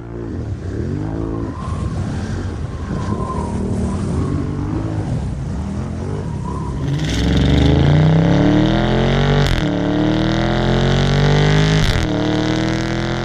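A motor vehicle engine revving in short blips, then accelerating hard, its pitch climbing and dropping back twice as it shifts up through the gears.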